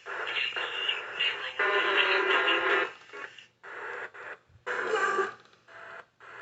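FM radio broadcast of music mixed with a voice, full for the first few seconds, then broken into short pieces with brief gaps.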